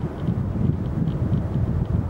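Wind buffeting the camera's microphone: a gusty, irregular low rumble.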